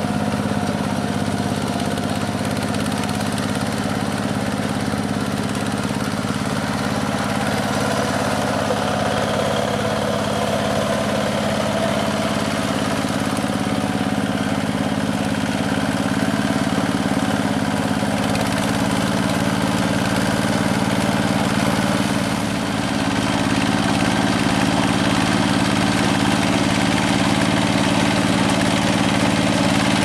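Two-wheel hand tractor's single-cylinder diesel engine running steadily as it drives a rotary tiller through a flooded, muddy rice paddy. There is a brief dip about three-quarters of the way through, after which it runs a little louder.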